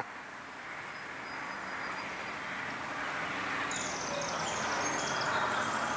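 Outdoor ambience: a steady hum of insects, growing slightly louder, with a few short, high bird chirps about four seconds in.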